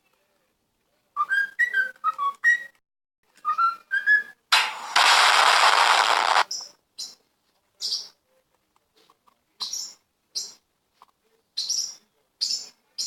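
A bird whistling a run of short notes that glide up and down, then a harsh, noisy burst lasting about two seconds, followed by scattered short, high chirps.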